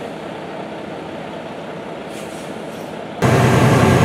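Heavy truck's diesel engine running steadily, at first a quieter rumble; about three seconds in it cuts to much louder and deeper, heard inside the cab with the engine at about 1,300 RPM.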